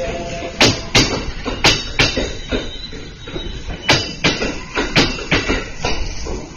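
Kintetsu electric train's wheels clacking over a rail joint at low speed over a steady rumble. The knocks come in quick pairs about a third of a second apart, one pair for each bogie, with longer gaps between bogies.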